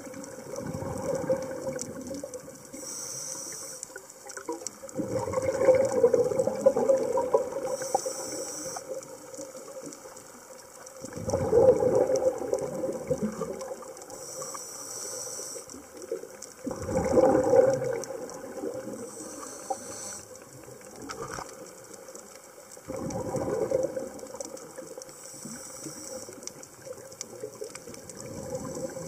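Scuba diver breathing through a regulator underwater: a short hiss on each inhale, then a louder rush of bubbles on each exhale, repeating about every six seconds.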